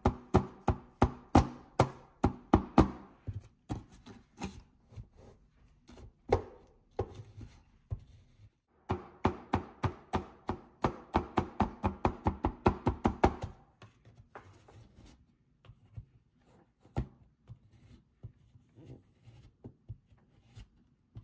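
Blue plastic spatula chopping and tapping on the frozen metal plate of a toy rolled-ice-cream maker, mixing crushed Oreo into the cream. It goes in two quick runs of about three strokes a second, one at the start and one from about nine seconds in to about thirteen, with slower, scattered taps between and after.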